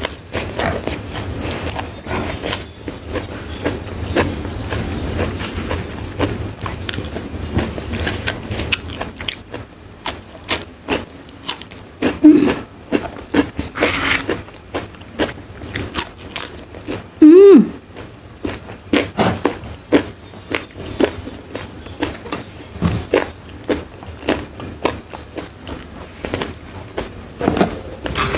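Close-miked chewing and crunching of crisp food, with irregular bites and crunches throughout. A short hummed vocal sound comes about 17 seconds in and is the loudest moment, with a softer one near 12 seconds.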